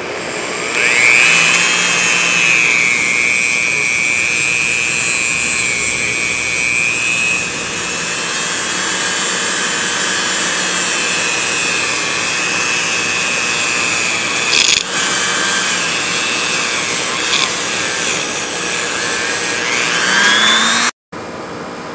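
Dremel rotary tool spinning a bristle brush inside a motorcycle cylinder head's exhaust port, scrubbing out carbon buildup. A high steady whine spins up about a second in, wavers in pitch, rises again near the end and cuts off suddenly.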